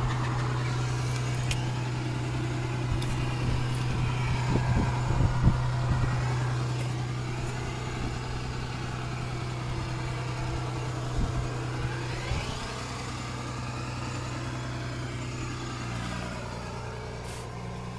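Vehicle engine idling: a steady low hum with a shifting rush of noise above it that swells and fades as the microphone moves.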